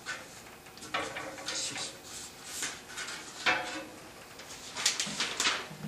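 Light, scattered clatter and knocks, like sticks and instruments being handled, with a sharper knock about three and a half seconds in and another near five seconds. No drumming or fife playing.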